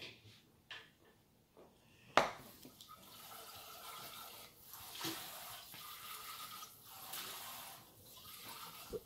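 A single sharp clink about two seconds in, like a metal spoon against a ceramic cereal bowl, then a faint steady hiss.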